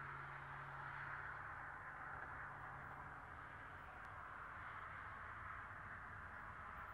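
Faint, distant sound of an approaching diesel-hauled container train: a low steady hum that fades about a second in, over a soft, even rushing noise.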